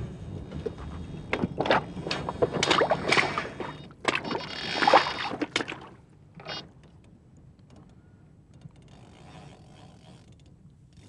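Splashing water and scraping, crunching steps on stones at a riverbank's edge, busiest in the first six seconds and quieter after.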